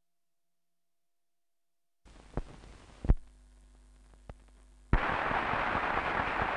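An old film soundtrack: about two seconds of dead silence, then several sharp clicks and pops over a faint low hum. About five seconds in, a loud, even rush of noise starts suddenly.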